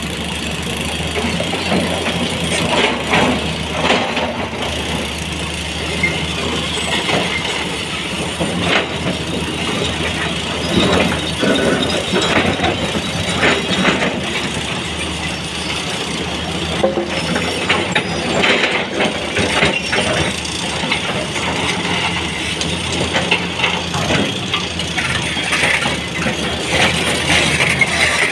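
Sany 240 excavator's diesel engine running steadily under work, with repeated knocks and clinks of stones against the bucket as it picks up and loads rock.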